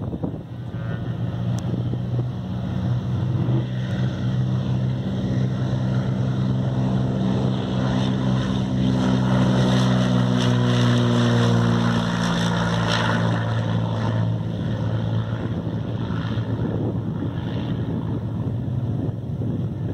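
Cessna 182 Skylane taking off: its piston engine and propeller drone at takeoff power, growing louder as it rolls past and dropping slightly in pitch as it goes by, with wind noise on the microphone.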